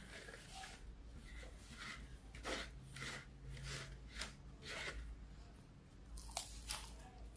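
Crispy fried chicken coating crunching and crackling as it is pulled apart by hand and then bitten, in a string of sharp crunches, the loudest of them about two and a half seconds in and near the end.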